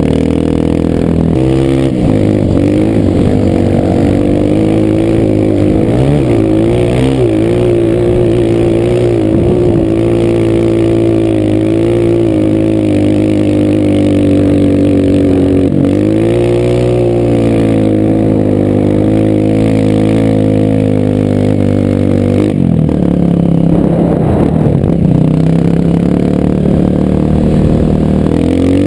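Honda CRF230 dirt bike's single-cylinder four-stroke engine running under load, its pitch rising and falling as the throttle and gears change, with a sudden change in pitch about three-quarters of the way through.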